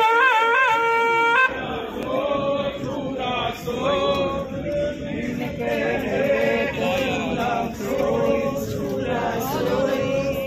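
A curved brass horn (narsingha) blown with a loud, wavering note that cuts off suddenly about a second and a half in. A crowd of voices then chants in unison.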